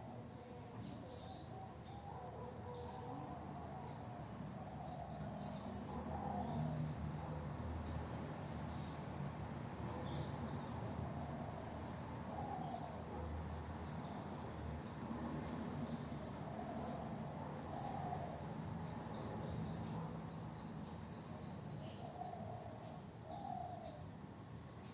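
Birds chirping: many short, high chirps throughout, with lower calls every few seconds, over a steady background hiss.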